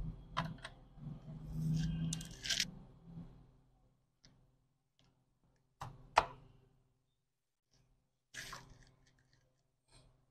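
Screws being driven into the plastic bottom case of an HP G4 laptop with a hand screwdriver: rubbing and handling noise for the first few seconds, then a few separate sharp clicks and taps, the sharpest about six seconds in.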